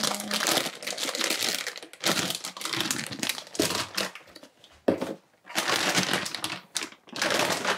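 Plastic food packets of an instant tteokbokki kit crinkling and rustling as they are handled, in several bouts with short pauses between.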